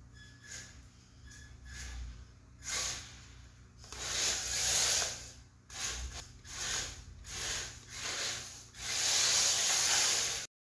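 Traxxas LaTrax Rally electric RC car driven hard on a concrete floor: hissing surges of tyre scrub and drivetrain noise as the throttle is blipped, several short ones and then a longer, louder run. The sound cuts off suddenly near the end.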